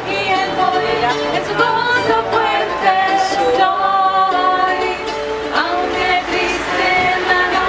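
A woman singing a song with a strummed mandolin accompaniment.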